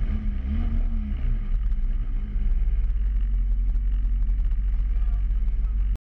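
Mazda Protegé5's four-cylinder engine running, heard from inside the cabin as the car rolls slowly forward, with a brief rise and fall in revs about a second in. It cuts off suddenly near the end.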